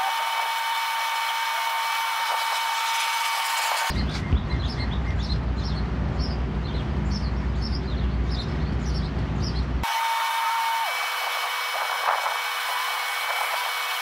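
Steady whine and hiss of background construction machinery, with a held tone that steps down in pitch about eleven seconds in. Twice the sound cuts abruptly: from about four to ten seconds it gives way to a low rumble with repeated short high chirps.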